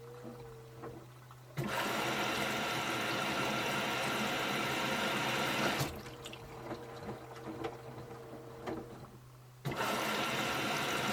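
Samsung EcoBubble washing machine during a wash cycle, water rushing in with a sudden start and stop for about four seconds, then softer sloshing, then rushing in again near the end, over a steady low machine hum.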